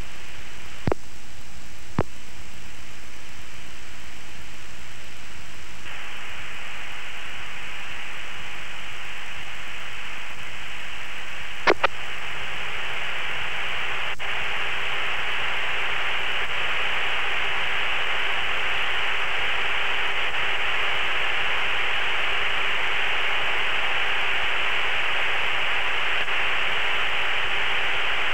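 Steady radio static hiss on a cockpit recording, with sharp clicks about one and two seconds in and a double click about twelve seconds in. The hiss grows louder about six and twelve seconds in, and a faint steady hum joins it at the second step.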